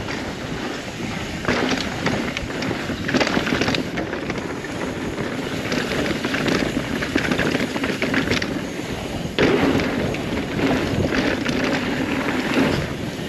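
A 2021 Rocky Mountain Altitude mountain bike running fast down a downhill trail: a steady rush of tyres on dirt and wind, broken several times by louder spells of clattering as the bike goes over rough ground.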